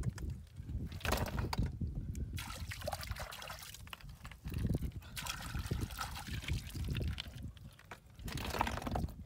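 Wet mud and water squelching and trickling as hands dig snails out of a muddy bank, with scattered sharp clicks. Near the end a handful of snails is dropped into a plastic bucket.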